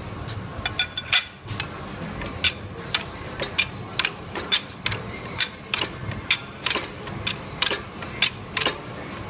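A mechanism clicking: sharp, even metallic clicks about twice a second over a low steady hum.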